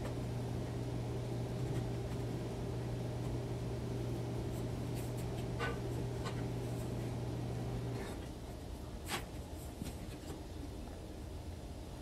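Steady low machine hum with a few faint light clicks; the hum stops about eight seconds in, leaving a quieter background broken by a sharp click a second later.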